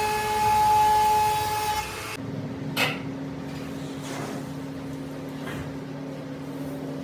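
CNC router spindle running with a steady high whine over cutting noise. It cuts off abruptly about two seconds in, leaving a lower steady machine hum with a click and a few faint sweeps.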